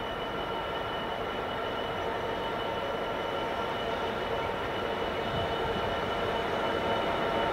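Freightliner Class 66 diesel locomotive's two-stroke V12 engine running as it hauls a train of hopper wagons slowly toward the listener, with a steady high whine, growing gradually louder.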